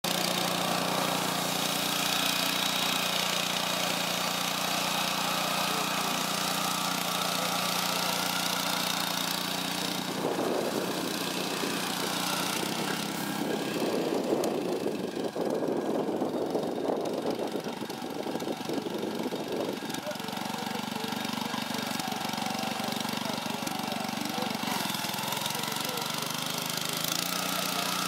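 Small engine of a walk-behind rice reaper running steadily as it is driven through standing rice. Between about 10 and 20 seconds in, irregular louder noise covers most of the engine.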